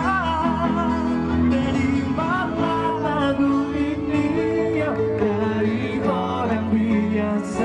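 Live band playing a slow pop ballad: male voices singing the melody over keyboard, electric bass and guitar, amplified through a PA system.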